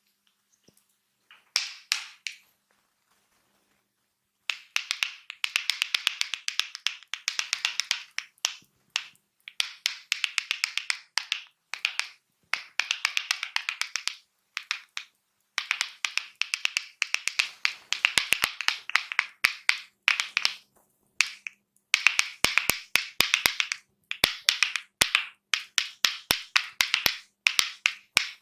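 A barber's hands doing percussive massage tapping: rapid, crisp clicking strikes, many a second, in runs of one to two seconds with brief pauses between. A few strikes come about two seconds in, then a pause, and the runs carry on steadily from about four and a half seconds.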